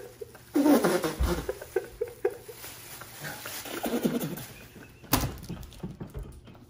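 A man laughing hard in short, high-pitched, breathless bursts, with a single sharp crackle about five seconds in.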